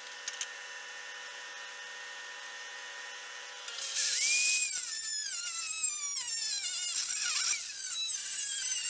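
Small angle grinder with a thin cutoff wheel cutting into a steel plate, starting about four seconds in; its high whine drops in pitch as the wheel bogs down under load, then wavers as the cut goes on. Before that, a quieter steady whine.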